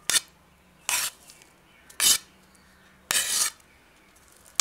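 A utensil scraping across a ceramic plate in short strokes about once a second, pushing chopped kiwi and strawberry slices off into a bowl.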